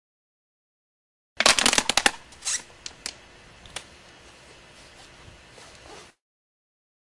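Thin plastic water bottle crackling as it is gripped and squeezed: a dense burst of sharp crinkles, then a few single clicks and a faint background, cut off abruptly.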